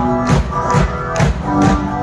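A band playing live: a steady, even drum beat under sustained instrumental chords.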